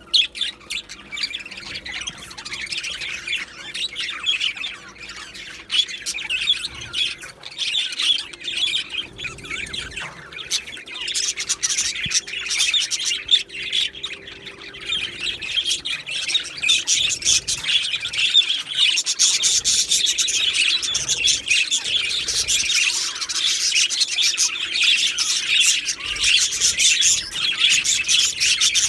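A flock of budgerigars chattering continuously, many birds at once warbling, chirping and squawking, growing louder in the second half.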